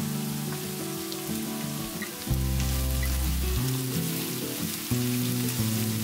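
Pork, onion and freshly added grated carrot sizzling in hot oil in a frying pan, stirred with a wooden spatula. Background music plays under the sizzle.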